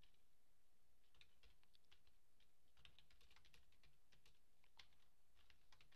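Faint typing on a computer keyboard: quick runs of key clicks starting about a second in, broken by short pauses.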